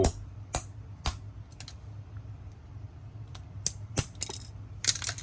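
Sharp knocks and clicks of hard plastic being struck and broken, as a wireless mouse's battery cover is smashed. The strikes come about every half second at first, then more scattered, with a quick clatter near the end.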